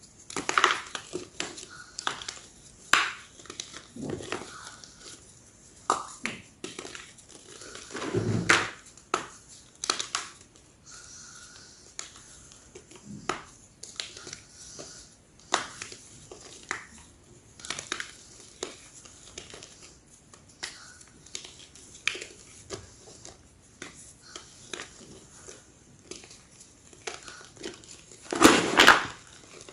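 Large slabs of gym chalk crunching and crumbling, in irregular sharp crunches with a few heavier crushing bursts, the biggest near the end.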